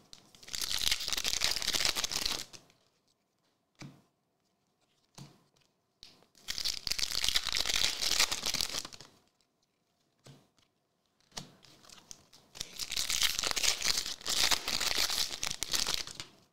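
Foil wrappers of trading-card packs being torn open and crinkled by hand, in three long bouts of rustling tearing, with a few faint clicks in the quiet gaps between.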